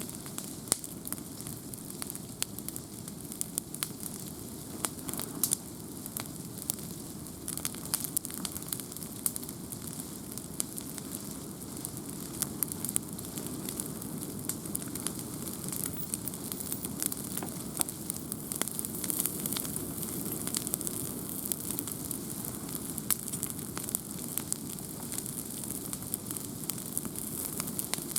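Wood campfire burning, with frequent sharp crackles and pops over a steady low rush of flame.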